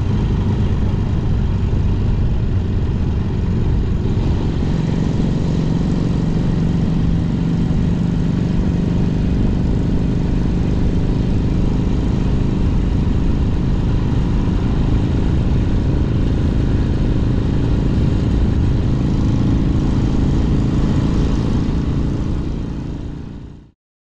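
1964 Honda CA77 Dream's 305cc four-stroke twin-cylinder engine running steadily while the bike is ridden along, with wind rush over the on-bike microphone. It fades out near the end.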